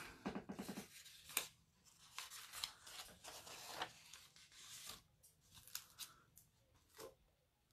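Faint rustling and crinkling of paper with light clicks and taps: catalog pages being turned and cards handled.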